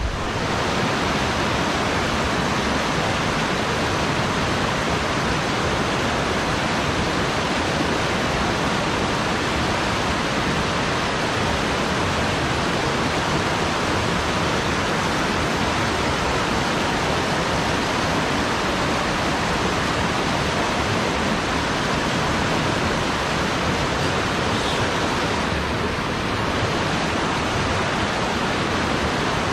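Steady rush of mountain-stream water flowing over rocks, an even noise without a break.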